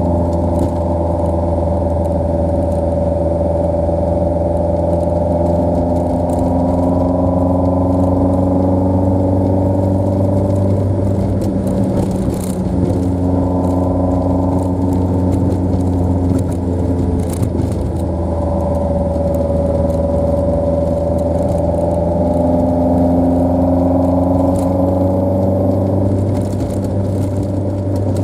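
Toyota AE86's four-cylinder engine running while driving, its revs rising and falling several times as it accelerates and eases off.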